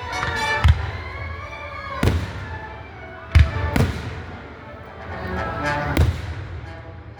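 Fireworks shells bursting: about five sharp bangs, the loudest about three and a half seconds in, with two close together there and another near six seconds. Music plays underneath the bangs.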